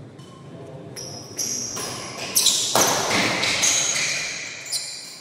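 Badminton doubles rally: rackets striking the shuttlecock with sharp cracks, the loudest hits about halfway through, amid sneakers squeaking on the court floor and quick footsteps.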